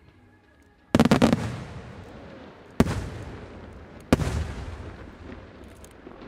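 Senatore Fireworks aerial display shells bursting: a quick cluster of bangs about a second in, then two single loud bangs near three and four seconds in. Each bang trails off in a long echo that dies away slowly.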